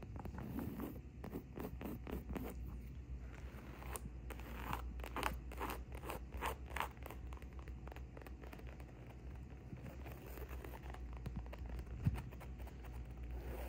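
Long acrylic fingernails scratching rapidly back and forth over woven upholstery fabric on a padded armrest, in quick short strokes, with one sharper tap near the end.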